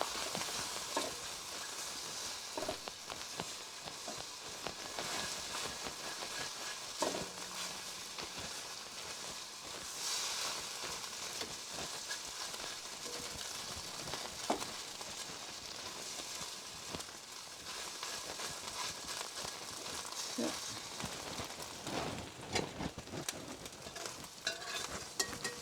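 Eggs scrambling in hot oil in a frying pan: a steady sizzle, with scattered scrapes and taps of a spatula stirring them that come more often near the end.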